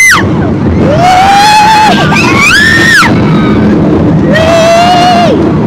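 Roller coaster riders yelling and screaming: long held cries, with a high shriek at the start and another about two and a half seconds in, over the steady loud rush of wind and the moving train.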